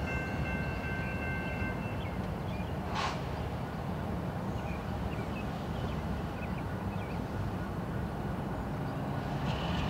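The end of a blast on a CN diesel locomotive's multi-chime horn, three steady notes cutting off about two seconds in, over the steady low rumble of a light-engine consist of four diesel locomotives rolling slowly. A brief hiss comes about three seconds in.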